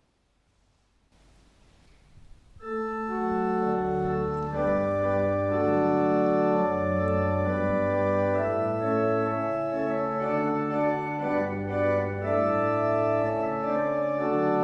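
Near silence for about two and a half seconds, then a church organ comes in with full, sustained chords over a bass line that moves in steps. This is the organ introduction to a congregational hymn.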